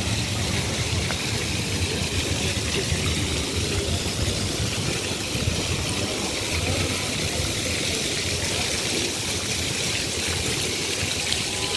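Small ground-level fountain jets splashing steadily onto the paving, an even hiss of falling water over a low steady rumble.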